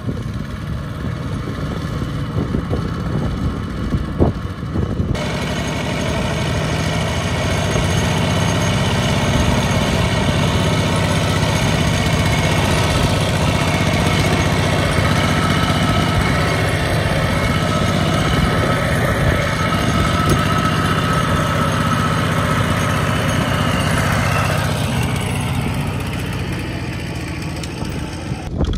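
Two-wheel walking tractor's single-cylinder diesel engine running steadily under load while hauling a trailer of rice sacks through mud, louder from about five seconds in and easing near the end.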